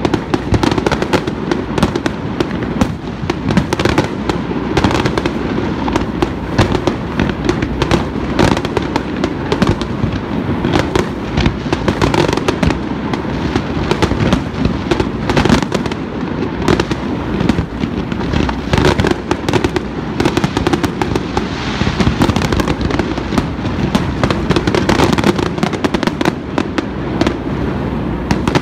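Aerial fireworks display: a continual barrage of shells launching and bursting, with dense crackling and sharp bangs over a steady rolling rumble.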